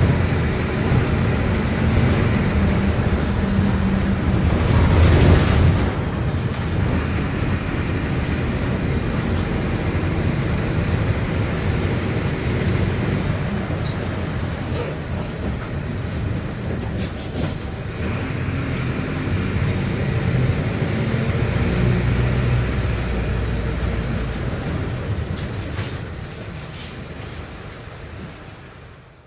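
Mercedes-Benz OF-1721 BlueTec 5 bus's OM-924 LA four-cylinder inline diesel engine running as the bus drives, pulling harder and easing off a couple of times, with a few sharp knocks and rattles midway. The sound fades out near the end.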